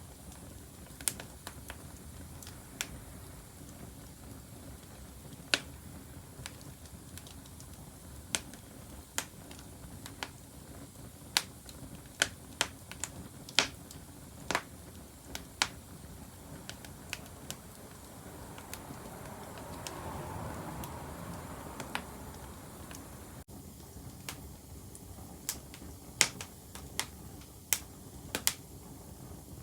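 Wood fire crackling: sharp, irregular pops and snaps of burning wood, sometimes in quick clusters, over a low steady background, with a soft hiss swelling briefly about two-thirds of the way through.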